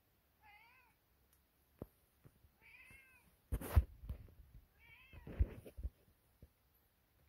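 A cat meows three times, short calls that waver in pitch, about half a second, two and a half and five seconds in. Loud knocks and thumps come in the middle, the loudest sound, with a few more just after.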